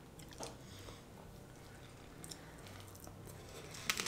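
Faint chewing of a soft fresh rice-paper spring roll, with scattered small clicks and a sharper click near the end.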